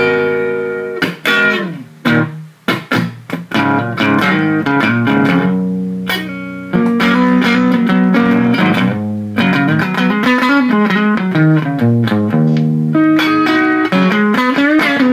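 Electric guitar played through an Egnater Rebel-20 tube amp head and speaker cabinet. A chord rings out and dies away at the start, followed by a run of picked single notes, chords and held notes.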